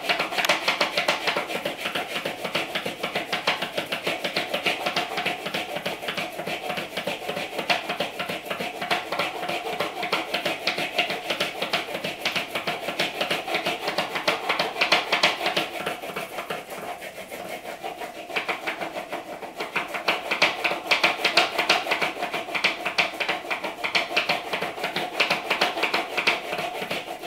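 A pencil rubbed rapidly back and forth across a sheet of paper held flat against a wall, a fast steady scratching that dips a little in loudness past the middle, building up a static charge on the paper.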